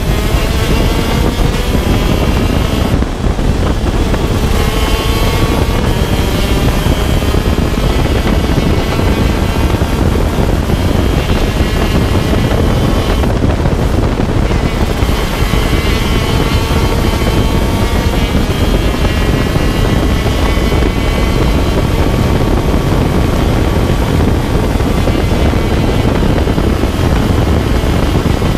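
125cc shifter kart's single-cylinder two-stroke engine at racing speed, its pitch climbing again and again through the gears and dropping back between shifts. There is heavy wind rumble on the microphone.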